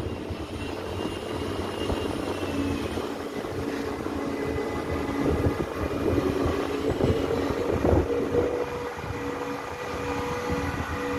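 Container crane hoist running as its empty spreader is lifted out of a ship's cargo hold: a steady mechanical hum with a thin whine that sets in a few seconds in. There is a brief louder clatter about eight seconds in.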